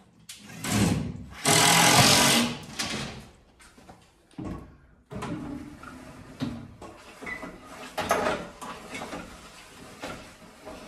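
Two loud rasping bursts in the first three seconds. About five seconds in, the hand-cranked winch of a drywall panel lift is turned, with a rapid mechanical clatter as the lift is wound.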